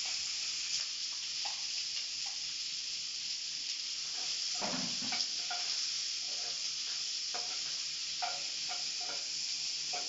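Freshly added chopped onions and green chillies sizzling steadily in hot oil and butter in a coated kadai. A spatula scrapes and stirs them against the pan now and then, more often in the second half.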